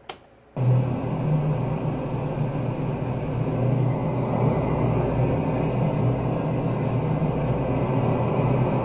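Raw EVP session recording played back: a steady hiss over a low hum, starting about half a second in.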